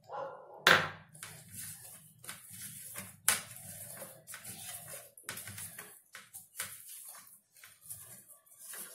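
Hand kneading soft wheat-flour dough with a little oil in a glass bowl: irregular squishing and rubbing, with a sharp knock about a second in and another about three seconds in.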